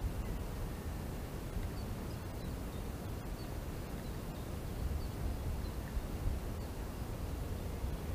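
Steady low rumble of wind on the microphone, with faint short high chirps scattered through it.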